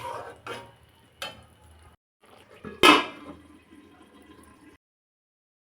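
Metal utensils clinking and knocking against a cooking pot: a few separate knocks, the loudest about three seconds in. The sound cuts off about a second before the end.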